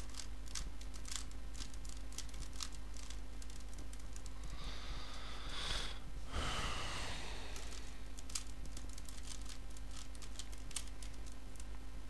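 Rubik's Cube being turned quickly: irregular plastic clicks and clacks as the layers snap round.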